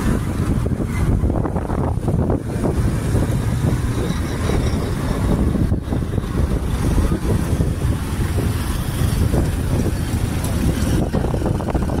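Steady low rumble of riding a motorcycle taxi through traffic: the bike's engine and road noise, with wind on the microphone.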